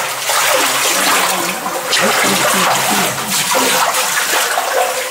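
Water splashing and sloshing steadily as rubber boots wade through a narrow, wet-floored tunnel.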